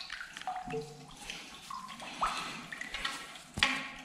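Water dripping into water in short, scattered pitched plinks, one rising in pitch, with a single sharp knock near the end.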